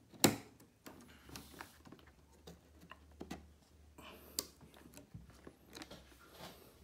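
A DDR4 RAM stick pressed into a motherboard memory slot: a sharp click about a quarter second in as it seats, followed by faint handling taps and clicks, with a clearer click a little past four seconds.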